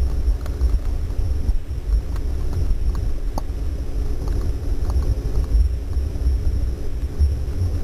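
Underwater ambience picked up through a camera's waterproof housing: a steady, dull low rumble of water moving against the housing, with a constant hum and a few scattered faint clicks.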